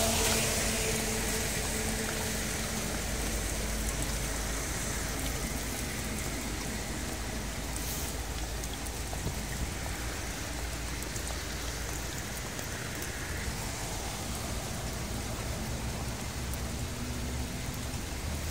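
Steady rain falling on wet gravel and onto a shallow stream of muddy runoff water.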